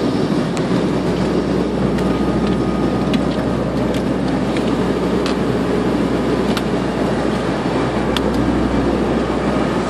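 Steady in-flight cabin noise of a passenger airliner: an even drone of engines and airflow with a low hum underneath, and a few light clicks scattered through it.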